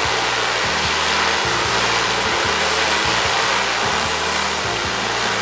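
Steady whirring hum of large multi-rotor agricultural spraying drones' propellers as they fly and hover, with background music underneath.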